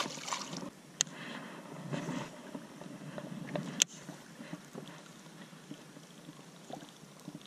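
A small smallmouth bass splashing into the river as it comes off the line. Then two sharp clicks, about a second in and near four seconds, as a baitcasting reel is handled, over quiet water and boat noise.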